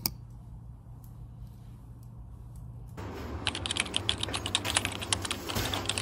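Rapid light clicking and tapping starts about three seconds in, over a low steady hum.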